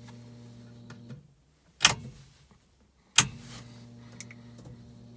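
The ignition of a FiTech-injected car is cycled off and on to prime the fuel injection before a cold start. A steady electric hum cuts out about a second in, two sharp clacks follow over the next second and a half, and the hum comes back after the second clack.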